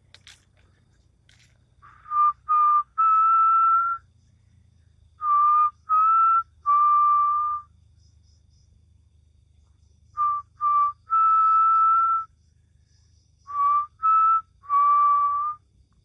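A man whistling the same three-note call four times: two short notes and then a longer held note, all at about the same pitch, with pauses of a second or two between calls.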